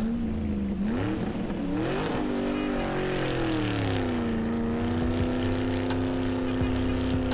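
Vehicle engine revving, its pitch climbing twice, then falling away about halfway through and settling into a steady run.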